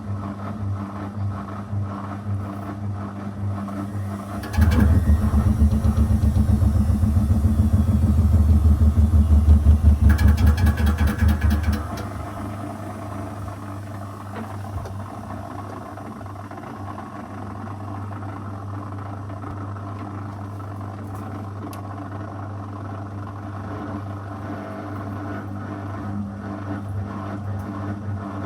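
Zanussi FL984CN front-loading washing machine running mid-wash: a steady hum throughout, with a much louder, pulsing stretch of the motor turning the drum from about four and a half seconds in until about twelve seconds in.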